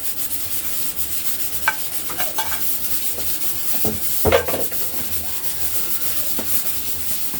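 Hands rubbing seasoning into raw mutton: a steady rubbing noise, with a few short knocks, the loudest about four seconds in.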